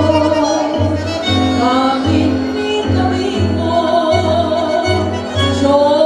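A tango ensemble playing live, with a woman singing over bandoneon, violin, double bass and piano. The bass marks a steady beat of about two notes a second under the sung melody.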